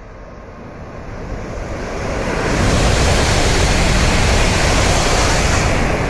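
N700-series Shinkansen bullet train passing through the station at speed without stopping: a rushing roar that builds over the first two and a half seconds, holds, and starts to fade near the end.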